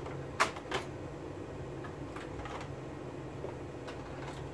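Sharp clicks and clacks of a hand handling an O gauge model locomotive and tender on the track: two loud clicks about half a second in, then a few fainter ones. A steady low hum runs underneath.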